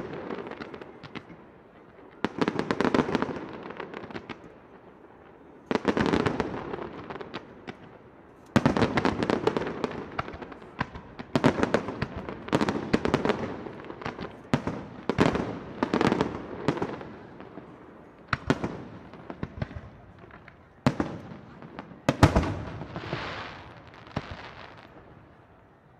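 Aerial firework shells bursting in a display: a string of sudden booms, several in quick succession in the middle, each dying away over a second or two in a dense crackle.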